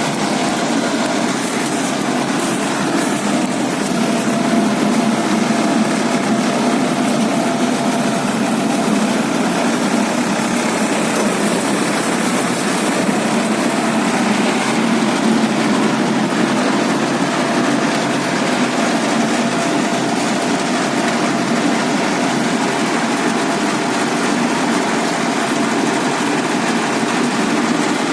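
Baler at work with its engine running steadily, an unbroken mechanical noise throughout with a faint steady tone over it.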